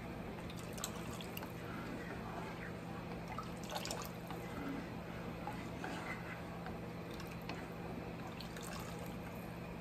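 Red chile sauce stirred in a saucepan, scooped up with a ladle and poured back in: soft pouring and dripping with a few faint clicks of the ladle, over a steady low hum.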